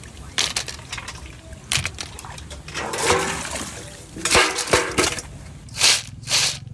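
Water splashing and sloshing in irregular short bursts, loudest in two pairs of splashes in the second half.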